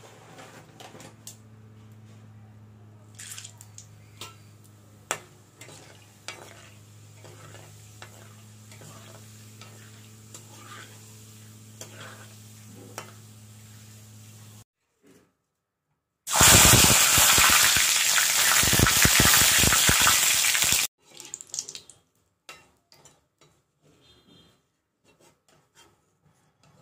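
A metal spatula stirring and tapping in an iron kadai, with scattered sharp clicks over a steady low hum. About 16 seconds in, a loud sizzle of food frying in hot oil starts and cuts off abruptly about four seconds later. A few more scattered clicks follow.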